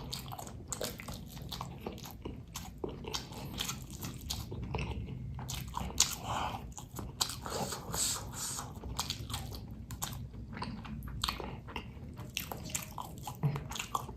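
Close-miked biting and chewing of crispy ayam geprek (smashed fried chicken), with irregular crunches and mouth noises.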